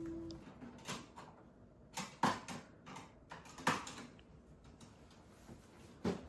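A handful of sharp clacks and knocks from hard objects being handled, about five in six seconds; the loudest come about two and a quarter and three and three-quarter seconds in.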